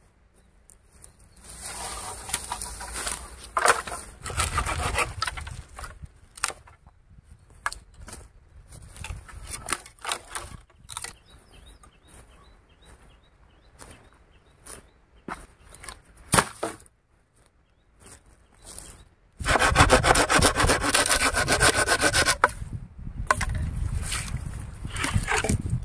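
Wood being sawn by hand in bursts of rapid back-and-forth strokes; the longest and loudest run comes about three-quarters of the way through.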